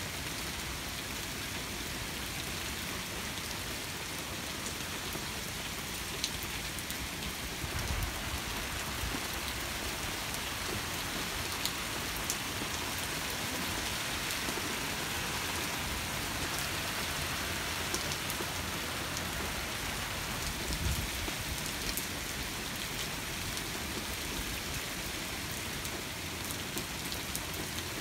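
Steady rain falling during a thunderstorm: an even hiss with scattered drop ticks, and a couple of brief low thumps about 8 and 21 seconds in.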